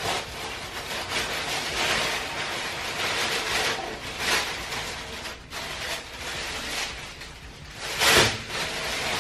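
Crinkling and rustling of paper exam-table cover as it is crumpled and pulled up off the table, in uneven surges with the loudest crackle about eight seconds in.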